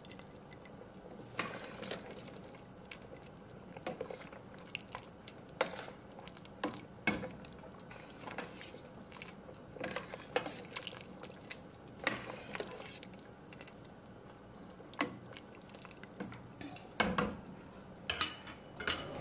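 A metal spoon stirring soup in a stainless steel pot, with scattered light clinks and scrapes of metal on metal, irregular and about a second apart.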